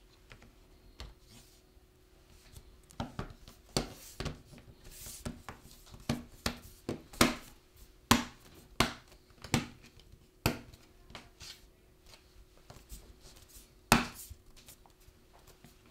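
Plastic bottom cover of an ASUS Vivobook Pro 15 N580GD laptop being fitted and pressed down by hand: an irregular run of sharp clicks and knocks as it seats onto the chassis, loudest about eight seconds in and again near the end.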